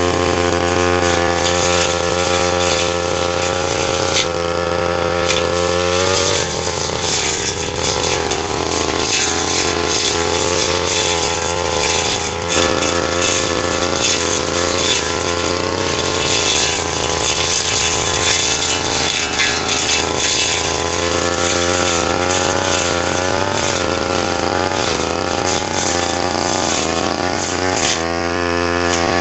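Brush cutter engine running at high throttle while cutting grass. Its pitch is steady at first, turns rough and uneven about six seconds in, settles again later, and rises near the end.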